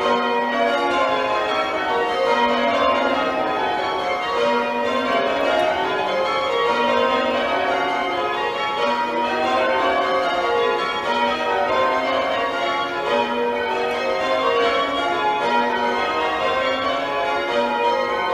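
A ring of church tower bells being change-rung with full-circle ropes, heard from the ringing chamber. It is a continuous, evenly paced succession of bell strikes overlapping in their ringing, with the deepest bell sounding about every two seconds.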